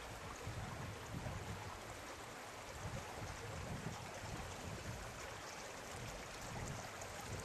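A small brook running steadily, with wind buffeting the microphone at times as a low rumble.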